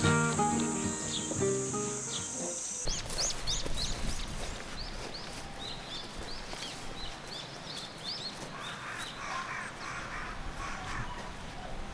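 Background music cuts off about three seconds in, giving way to outdoor ambience with a bird chirping over and over in short, quick calls. A busier patch of chattering calls comes in near the end.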